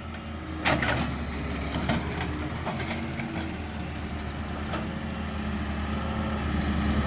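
Engine running steadily at low revs, with a few short knocks over the hum.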